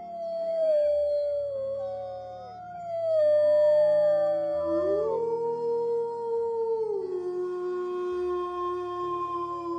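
Wolves howling in a chorus, several voices overlapping. Long calls slide down in pitch early on. About halfway, one howl rises and holds, then drops to a lower held note while a higher voice holds above it.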